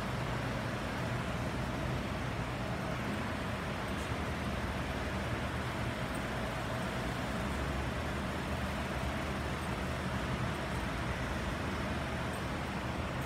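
Steady background rumble and hiss of a large interior's ambience, with a faint held hum and no distinct sounds standing out.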